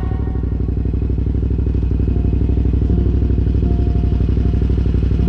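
KTM 990 Adventure's V-twin motorcycle engine running steadily with an even, fast low pulse.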